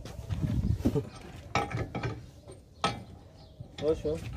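A wrench working on the bolts of a Mitsubishi Pajero's rear wheel hub, with metal-on-metal clinks and a few sharp clanks as the axle shaft is being removed.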